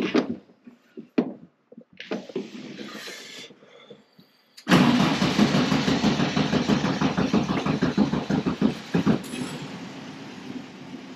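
1964 Volkswagen Beetle's air-cooled flat-four being cranked and catching suddenly about four and a half seconds in, after a few clicks and a brief crank. It runs loud and fast for a few seconds, then settles to a quieter steady idle near the end.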